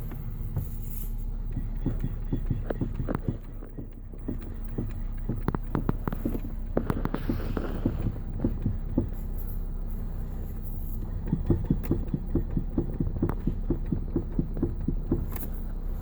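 Knocking from the steering rack of a 2014 Nissan Qashqai J11: repeated short knocks, irregular at first, then a quicker run of about three or four a second, over a steady low vehicle hum. The owner takes the knock for a worn steering rack.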